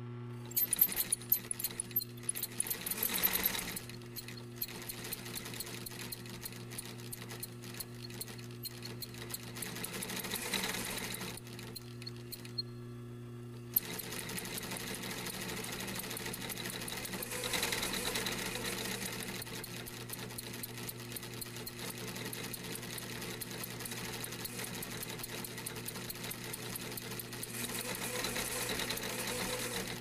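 Industrial sewing machine stitching, a rapid clatter of stitches over a steady motor hum. The stitching starts just under a second in, drops away briefly about halfway through, resumes with one sharp click, and then runs on steadily.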